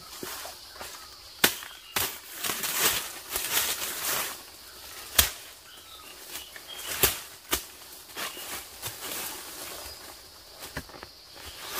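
Dry leaf litter rustling as someone handles and moves through it, broken by sharp snaps of twigs, the loudest about one and a half and five seconds in.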